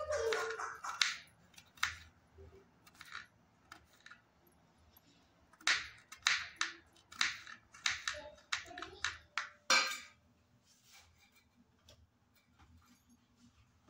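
A kitchen knife chopping garlic cloves on a plastic cutting board: a run of sharp knocks, a pause of about two seconds, then a second run that stops about ten seconds in.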